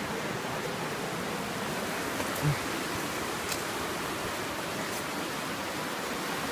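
Steady rush of fast-flowing river water, with a single brief low thump about two and a half seconds in.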